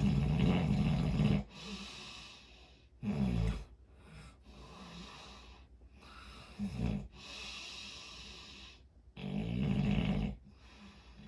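A person snoring: four low-pitched snores about three seconds apart, the first and last the longest, with softer breathy hiss between them.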